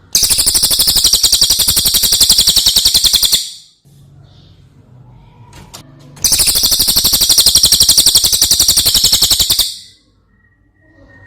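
Brown cililin songbird singing two long, loud, very fast trills, each lasting about three and a half seconds with a pause of nearly three seconds between them.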